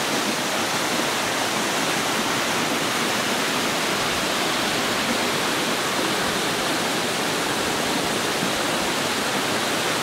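Small waterfall and stream running over granite boulders: a steady, even rush of water.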